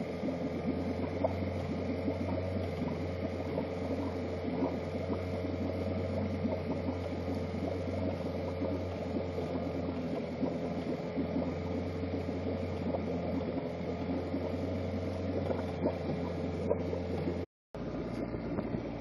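Sailboat's outboard motor running steadily. The sound cuts out for a moment near the end.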